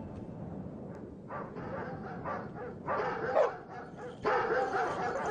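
Sled dogs barking and yipping in short, repeated bursts that start about a second in and grow louder.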